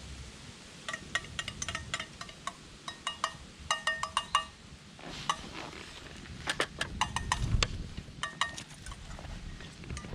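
Dishes or cookware being handled, with many short clinks, several of them ringing briefly, in clusters, and a low rumble of handling a little past the middle.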